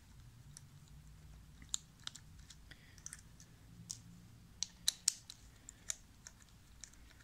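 Scattered light clicks and taps of a 5.5 mm socket driver turning out the small screws of a VDO windshield washer pump, with a loosened screw set down on the bench.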